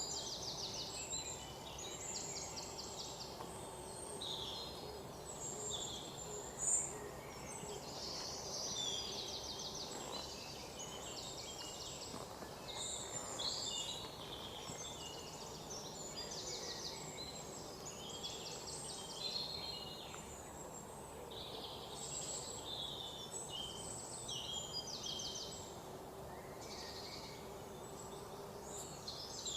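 Many small birds chirping and trilling together without a break, over a faint steady hum. A single short click about seven seconds in.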